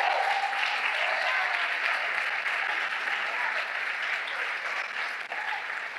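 Congregation applauding; the clapping slowly dies down toward the end.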